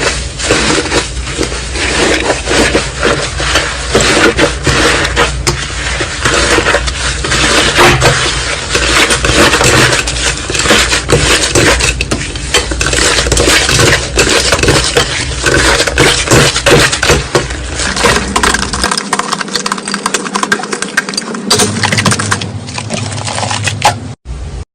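Slime being squeezed, pressed and stretched by hand close to the microphone, a dense run of small sticky clicks and pops that stops abruptly near the end.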